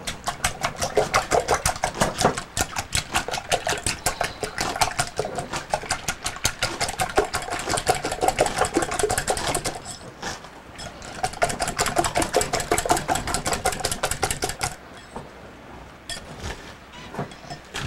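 Wire whisk beating eight raw eggs in a mixing bowl: fast, rhythmic clicking of the whisk against the bowl, with a short break about ten seconds in, stopping about fifteen seconds in.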